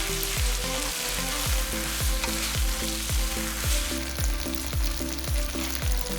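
Food sizzling as it fries in a hot pan, with a continuous crackling hiss. Background electronic music with a steady kick-drum beat plays underneath.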